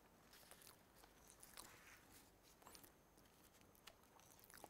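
Near silence: room tone with a few faint rustles and small clicks of papers being handled on a desk.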